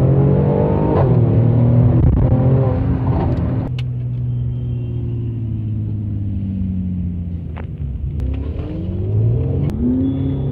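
Car engine pulling hard, then a sudden lift-off about a third of the way in, its pitch falling steadily for several seconds as it slows. It revs up again near the end, heard from inside a car's cabin.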